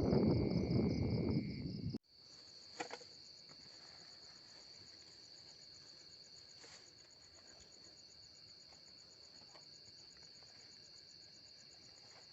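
Insects, crickets by their sound, trilling steadily in a high, finely pulsed chorus. For the first two seconds a loud, dense crackling noise covers them and then cuts off abruptly, leaving the trilling alone with a single faint tap shortly after.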